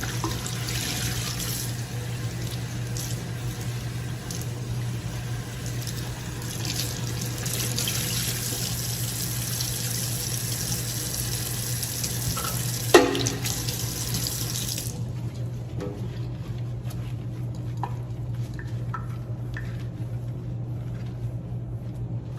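Kitchen tap running into a sink while a cleaning towel is rinsed out, shut off suddenly about 15 seconds in. A single sharp knock comes shortly before, and a few small clicks follow.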